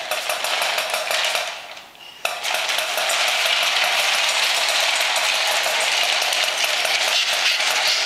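Battery-operated walking toy puppy's plastic gear motor whirring with a rapid clicking as it walks; it dies away briefly about two seconds in, then starts again abruptly.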